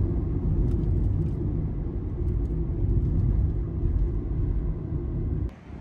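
Low, steady road and engine rumble heard from inside a moving car; it cuts off suddenly near the end.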